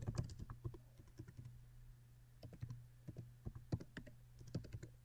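Typing on a computer keyboard: quick, irregular key clicks in runs, with a short pause about two seconds in. A steady low hum runs underneath.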